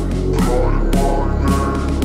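House music track in an instrumental passage: heavy bass line and sustained synth chords under a steady beat, about two beats a second, with no vocals.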